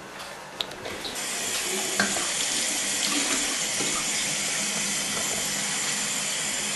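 A bathroom sink faucet running steadily into a coffee pot being rinsed out, starting about a second in after a few light knocks.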